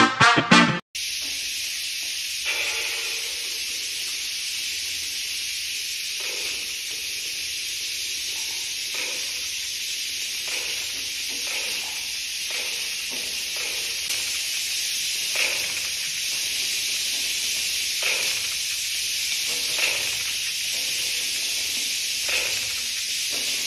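Dozens of small battery-powered toy spiders buzzing and skittering on a tiled floor, a steady hissing clatter. Faint clicks come every second or two.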